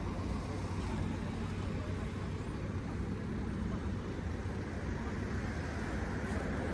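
Steady low outdoor rumble with no distinct events, the kind given by distant traffic or wind on the microphone.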